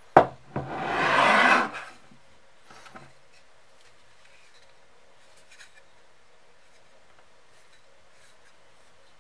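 A sharp knock and a second smaller knock, then about a second of rough rubbing that swells and stops abruptly, followed by a few faint clicks: an old rusty club hammer head being handled against a plywood board.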